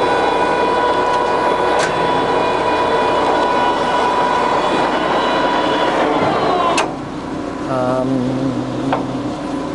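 Jessey Major 1860 centre lathe running at its 65 rpm spindle speed: a steady whine of several tones from the motor and headstock gearing, with a click about two seconds in. Near seven seconds a click comes and the whine sags and drops away, followed by a short wavering tone.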